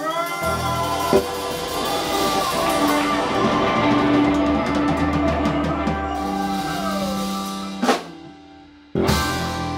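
Live rock band with drum kit, electric guitars, bass and keyboards holding a long chord over busy drumming. It dies away, then two sharp accented band hits come near the end, like a song's closing.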